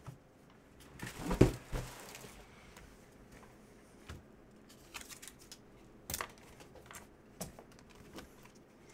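Trading cards and their plastic packaging being handled: a crinkling rustle about a second in, lasting about a second, then a few scattered light taps and clicks.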